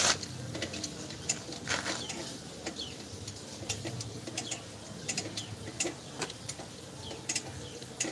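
Irregular metallic clicks and light knocks from a drum brake drum being worked by hand over the new brake shoes on a Toyota HiAce rear wheel.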